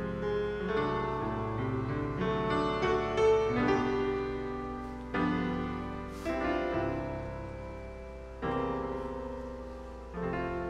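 Baldwin grand piano played solo. A run of chords comes in the first half. Then single full chords are struck every second or two, each left to ring and fade.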